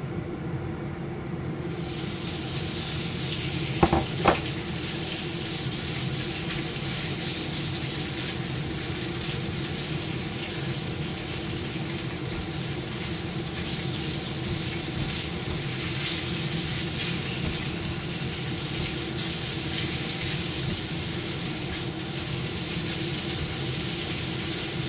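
Marinated chicken pieces sizzling as they fry in a hot nonstick pan on a gas burner. The sizzle starts about two seconds in and goes on steadily, with two sharp knocks about four seconds in and a steady hum underneath.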